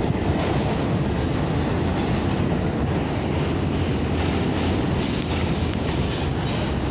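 New York City subway train running along the platform track through the station: a steady, loud rumble of steel wheels on rails.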